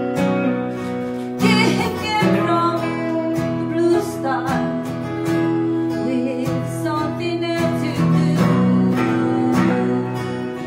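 Live country-rock song: a woman sings over a strummed acoustic guitar, with an electric guitar playing alongside. The singing comes in about a second and a half in.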